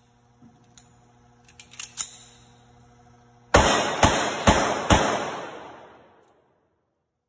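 IMBEL 1911 pistol in .380 ACP fired four times in quick succession, about half a second apart, the reverberation trailing off after the last shot. A few light clicks and knocks come before the shots.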